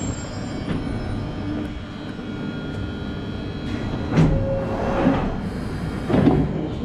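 London Underground Northern line train (1995 Stock) rumbling to a stop alongside the platform, with several loud, sharp sounds in the second half as it comes to a stand and its doors slide open.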